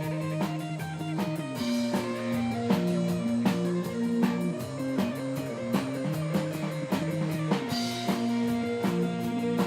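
Rock music: a guitar playing a repeating melodic figure over a drum kit keeping a steady beat.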